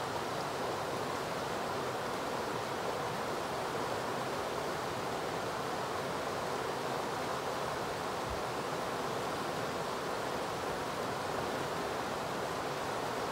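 Muscoot River water rushing steadily over a rocky riffle.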